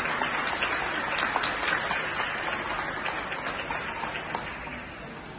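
Audience applause, many scattered hand claps, gradually dying away.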